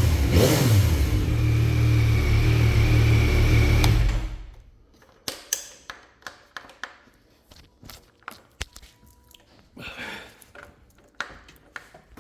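2024 Yamaha MT-09 SP's 890 cc inline-three on its stock exhaust, revved once and then idling, switched off about four seconds in. Afterwards, scattered faint clicks and knocks.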